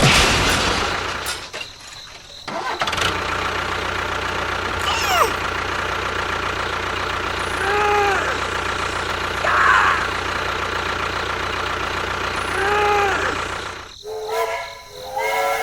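A small engine running steadily, cutting out briefly about two seconds in and again near the end. A few short tones rise and fall over it.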